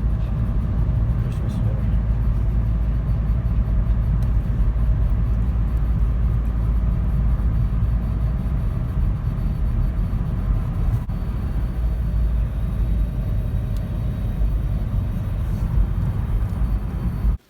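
Loud, steady low rumble of vehicle road noise, which starts and stops abruptly.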